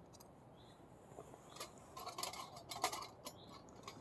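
Thin metal panels of a flat-pack twig stove clicking and clinking as they are handled and slotted together: a scatter of light metallic ticks starting about a second in, busiest near the middle.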